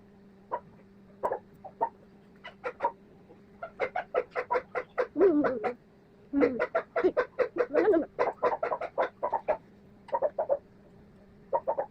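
Dog barking in the background in quick runs of short, sharp barks, densest and loudest in the middle at about four or five a second, with a few longer sliding yelps among them; a steady low hum runs underneath.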